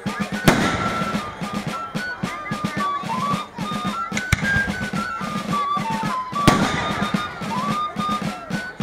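Music: a stepping melody over a steady, even drum beat. Three sharp crashes cut through it: about half a second in, just past four seconds, and near six and a half seconds.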